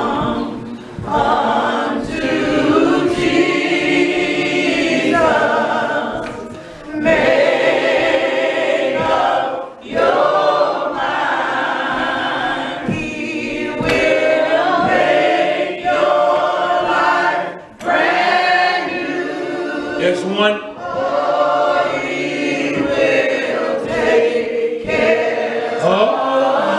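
A church choir singing a slow gospel hymn of invitation, in long sung phrases with a few short breaks between them.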